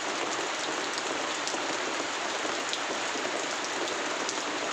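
A steady hiss and patter of falling water, with faint scattered ticks.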